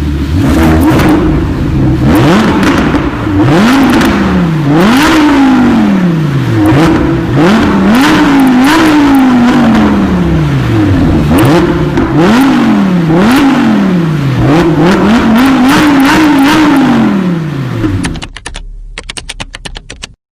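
Audi R8's 5.2-litre V10 being revved repeatedly, about nine times: each rev climbs quickly and falls back more slowly toward idle. Near the end the engine sound drops away, leaving a run of faint clicks.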